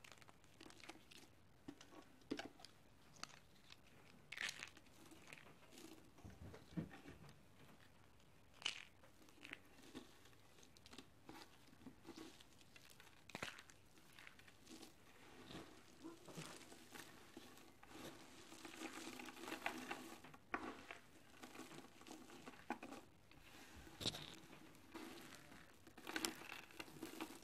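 Hands crushing dry soap curls and slivers into crumbs and powder: quiet, irregular crunching and crackling, with many small cracks and a denser stretch of continuous crumbling in the second half.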